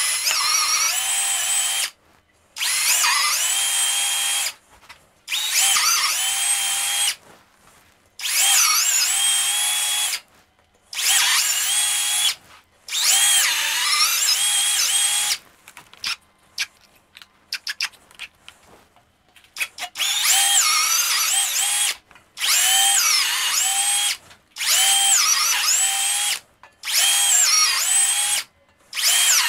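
Makita 18 V cordless drill running in about eleven bursts of roughly two seconds each, its whine wavering in pitch as a 7 mm bit opens up the oil feed holes in the main bearing saddles of a Toyota 1G-FE engine block. Around the middle comes a run of short trigger blips instead of a full run.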